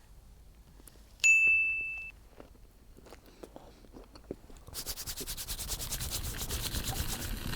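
A single bright ding about a second in, ringing out and fading within a second, among faint small clicks. From about five seconds in a dense, fast rattling texture builds up.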